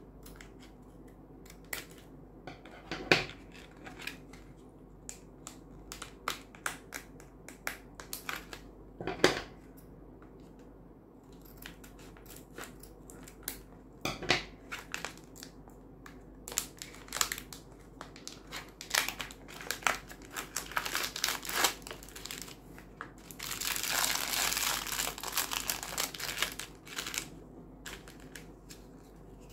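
Thin plastic packaging bags crinkling and rustling as they are cut open with scissors and handled, with scattered sharp clicks and taps. The loudest clicks come about 3 and 9 seconds in, and a longer stretch of steady crinkling comes about 24 seconds in.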